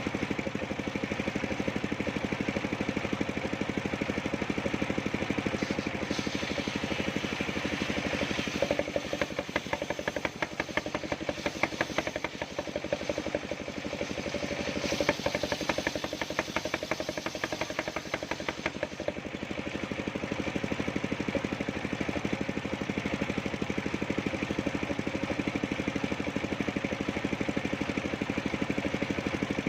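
Engine-driven homemade circular sawmill running steadily. From about six seconds in until about nineteen seconds the blade cuts through very old coconut-palm timber, adding a harsh, rapidly pulsing rasp with uneven loudness, after which the saw runs free again.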